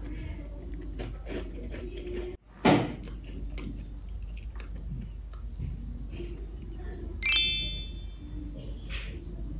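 A person chewing a biscuit, with faint mouth and crunch sounds. About a quarter of the way in the sound drops out briefly and a short loud noise follows, and about three-quarters in a bright bell-like ding rings out and fades within a second.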